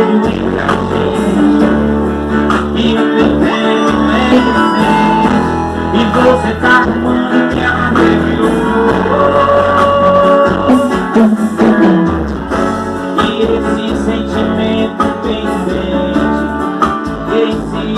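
Band music with guitar and bass notes, and some singing.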